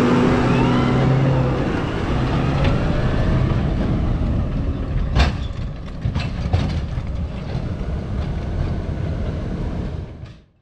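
Case IH Puma 185 CVX tractor towing a manure spreader along a rough gravel track. The engine is loudest at first, close by, then fades as it pulls away, under a steady rattle and rumble from the wheels and spreader. Two sharp knocks come about five and six and a half seconds in.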